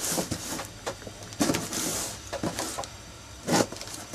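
A plastic mailing bag around a cardboard parcel being cut with a knife and pulled open: crinkling plastic in two longer rustles, with a few knocks of the box and hands against it.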